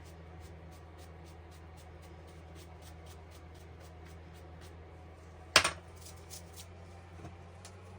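One sharp knock a little past halfway, over a steady low hum and faint regular ticking.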